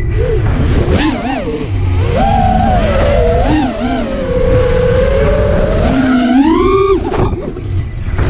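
A motor whining and repeatedly changing speed, its pitch gliding up and down and rising sharply near the end, over heavy wind rumble on the microphone.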